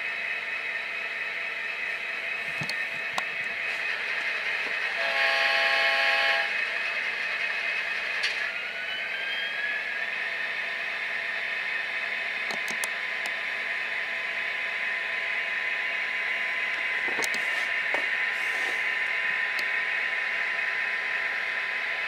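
LokSound sound decoders in two Kato SD40-2 model diesel locomotives, playing their EMD prime-mover sound steadily. A horn blast comes about five seconds in and lasts about a second and a half. About three seconds later there is a rising whine as the engine sound revs up, and the units start to move.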